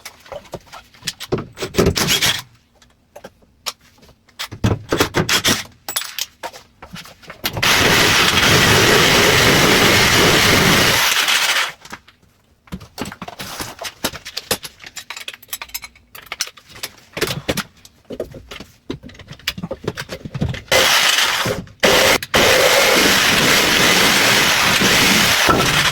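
A power tool running in two steady stretches, about four and five seconds long, during carpentry work taking out a wall frame's top plate, with sharp knocks and scraping in between.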